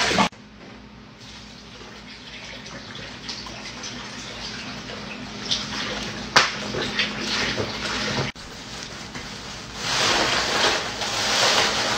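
Liquid pouring from upturned plastic bottles into a large plastic tub of punch. Near the end a louder, brighter rush comes as a bag of ice is tipped into the tub.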